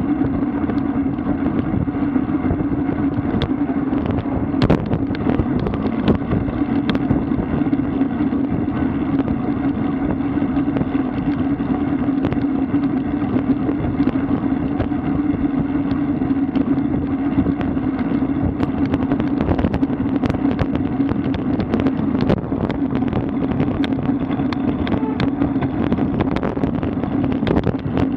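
Wind and road noise from a moving road bike, with a steady low hum underneath and frequent small knocks and rattles from bumps in the road.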